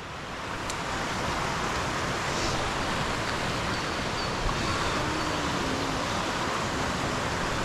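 Steady rushing of a waterfall, an even hiss-like roar of falling water with no rhythm or pitch.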